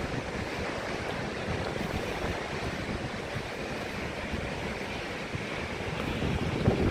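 Ocean surf washing onto a beach, a steady rush of waves that swells louder near the end, with wind noise on the microphone.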